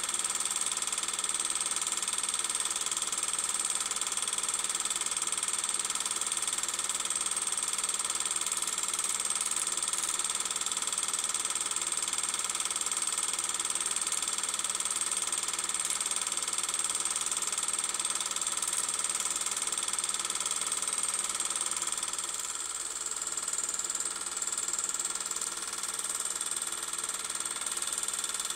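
A steady hiss laced with constant high whining tones, unchanging throughout, dipping slightly in level about three quarters of the way in.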